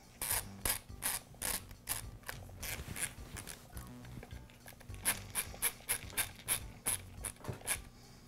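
Ratcheting screwdriver clicking as it drives a screw home, in two runs of sharp clicks at about three a second with a short pause in the middle.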